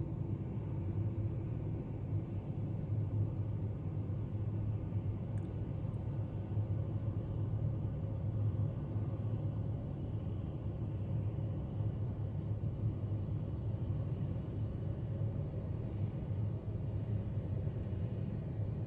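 Steady low rumble of distant jet aircraft engines, holding even throughout with no pass-by rise or fall.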